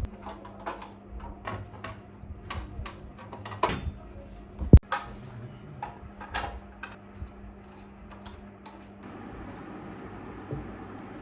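A series of light clinks and knocks, with one sharp, loud knock about five seconds in, over a steady low hum that stops about nine seconds in.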